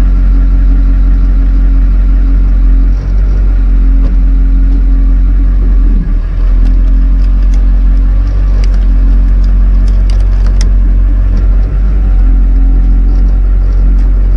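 An engine idling steadily, a deep, unbroken hum. A few faint clicks come partway through.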